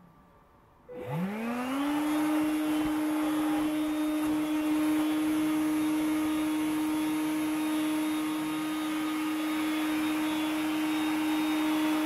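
Makita CL108FD 10.8 V cordless stick vacuum switched on about a second in: its motor whine rises quickly in pitch, then runs steadily at full speed with a rush of air. Its nozzle is sealed against foam joint mats that it lifts by suction.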